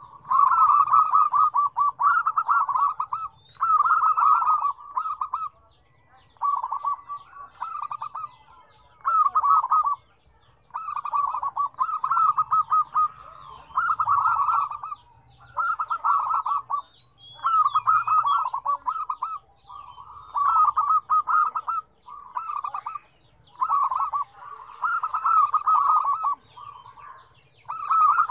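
Zebra doves (perkutut) cooing: a string of rapid staccato coo phrases, each about a second long, about one every two seconds, with faint high chirps behind them.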